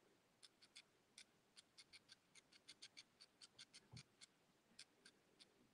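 Faint, irregular clicking of someone typing on a device keyboard, several clicks a second, with one soft thump about four seconds in.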